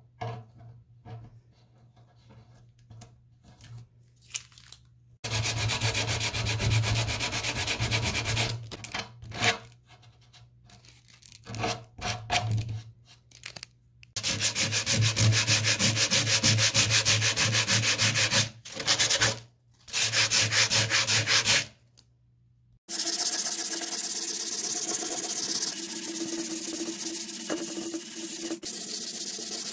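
Sandpaper rubbing on the old finish of a wooden bench top, in several long stretches of quick, even strokes that start and stop abruptly. Near the end a sanding sponge is worked by hand across the top.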